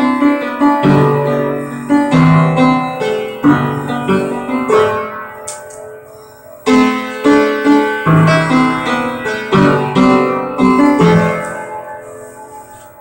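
Piano music: a slow piece of struck notes and chords, each ringing and fading, growing softer near the end.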